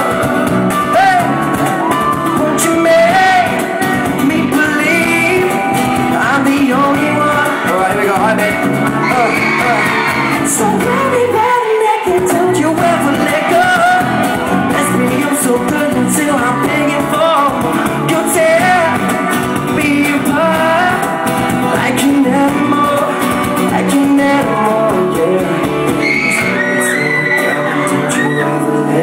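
Live acoustic pop performance: a male singer's voice over acoustic guitar and keyboard, with shouts and whoops from the audience.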